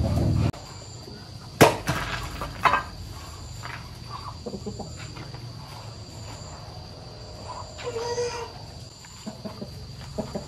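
Farmyard ambience with a steady high insect drone and a chicken's call about eight seconds in. A low motor hum cuts off abruptly half a second in, and two sharp knocks follow about a second apart.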